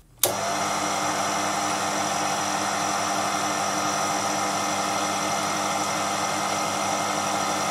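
Proxxon PD 250/e mini lathe motor and spindle running at steady speed with no load, a constant hum and high whine that cut in abruptly just after the start; the parting tool is not yet cutting.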